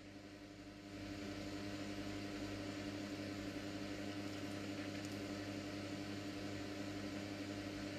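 Wall-mounted electric fan running: a faint, steady low hum with a light hiss, a little louder from about a second in.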